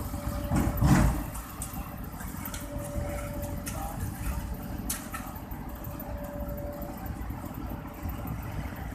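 A steady, low engine-like rumble of machinery, swelling louder briefly about a second in, with a few sharp clicks.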